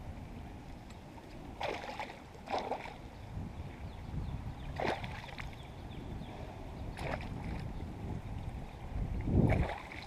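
A hooked pike thrashing at the water's surface off a kayak: about five separate splashes, the biggest near the end. Steady wind rumble on the microphone runs beneath them.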